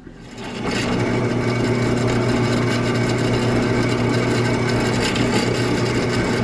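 Drill press running and drilling a hole through a steel flat bar held in a drill press vise: a steady motor hum under the bit's cutting noise. It comes up to full level within about the first second.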